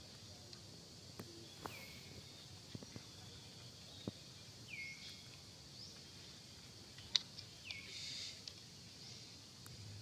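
Forest ambience: a steady high insect drone, with a short call that falls in pitch and repeats about every three seconds. A few faint clicks and taps come through, the sharpest about seven seconds in.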